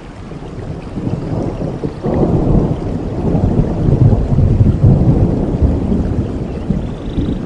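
Low rolling rumble of thunder, swelling about two seconds in and easing off near the end.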